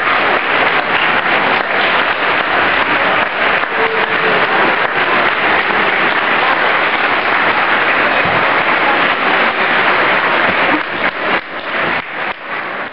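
Large audience applauding with steady, dense clapping that thins out and fades near the end.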